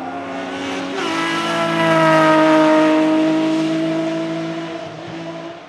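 An off-road racing buggy's engine at full throttle passing close by. The engine note climbs about a second in, holds high and loud through the middle while sagging slightly in pitch as the car goes past, then fades as it pulls away.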